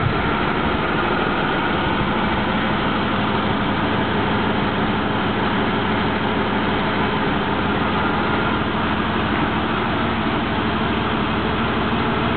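Aston Martin DB9's V12 engine idling steadily.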